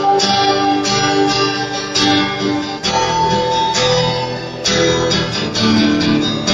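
Slow worship music carried by strummed guitar chords, with no singing, the chords changing every second or so.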